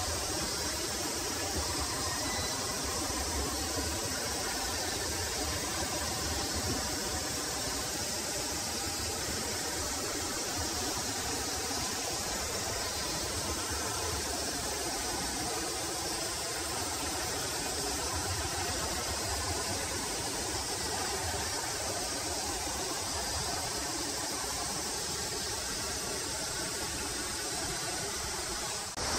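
Steady outdoor background: a constant high-pitched insect chorus over a low, even rumble.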